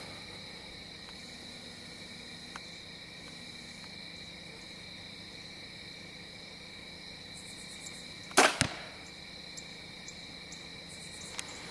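Crickets trill steadily. About eight seconds in, an arrow from a compound bow smacks sharply into a foam archery target, with a second knock a fraction of a second later.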